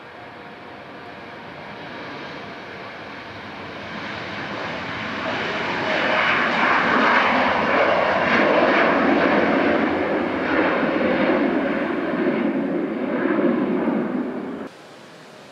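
Embraer regional jet's twin turbofan engines running at high power on the runway, growing steadily louder over the first several seconds and staying loud, then cutting off abruptly near the end.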